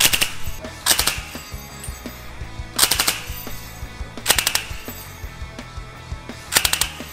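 Suppressed belt-fed machine gun chambered in 300 Blackout firing five short bursts of a few rounds each, spaced about one and a half to two seconds apart.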